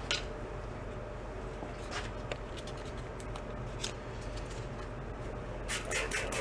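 Sandpaper being handled and folded around a paint-stick sanding block, light rustles and a few small clicks. Near the end, a hand trigger spray bottle starts misting water onto the tank to wet it for sanding, a quick run of squirts about four a second.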